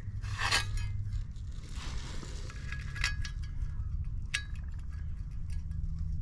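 Small metal parts and tools being handled: a few light clinks and sharp ringing ticks with some scraping, over a steady low hum.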